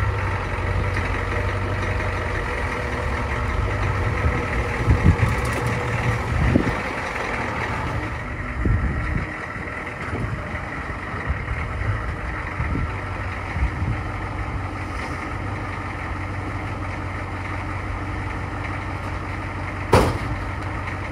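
Ford 6.9 L IDI diesel V8 running on a cold day, with some low thumps and uneven swells in the first several seconds as the truck moves, then idling steadily. A single sharp knock near the end.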